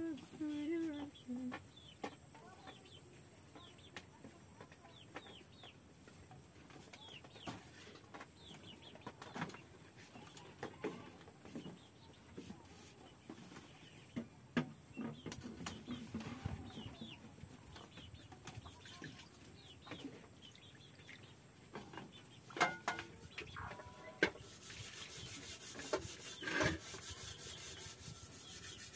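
Chickens clucking, with scattered light knocks and clicks. Near the end a steady rasping, scraping sound starts.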